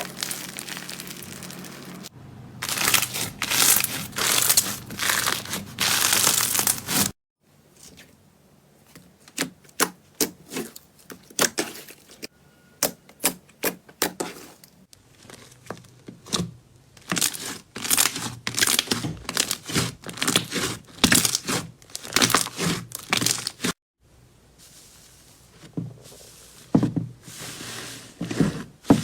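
Slime being pressed, poked and stretched by hand, giving a run of sharp crackles, pops and tearing sounds. It comes in several clips that change abruptly, with quieter stretches between the bursts of popping.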